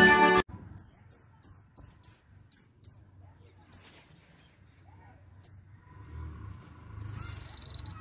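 Nestling songbirds begging: a run of about eight short, high chirps at roughly three a second, two more single chirps a little later, and a quick chattering series of high notes near the end. A snatch of music cuts off just after the start.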